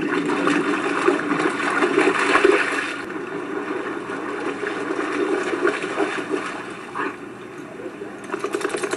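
Lake water splashing and churning as a German Shepherd wades through the shallows. It is loudest for the first three seconds or so, then dies down.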